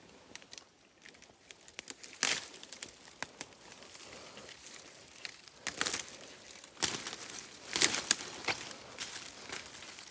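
Irregular rustling and crackling of dry leaves and twigs, with louder crunches about two, six, seven and eight seconds in.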